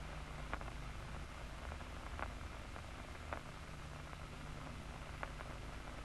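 Locust nerve cord recording played through an audio monitor loudspeaker: a faint steady hiss with a handful of scattered single clicks, the resting state of the nerve with no large impulses firing.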